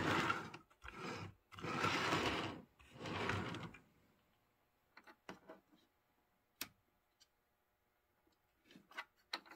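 Model train locomotive's wheels and gears whirring along the track in four short stretches over the first four seconds, followed by a few light clicks from handling the model.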